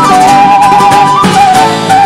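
Loud Bolivian morenada folk dance music: a melody of long held notes stepping between pitches over a dense accompaniment.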